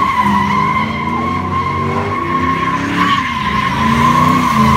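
Pickup truck spinning donuts: its rear tyres squeal in one steady, loud screech while the engine revs up and down underneath.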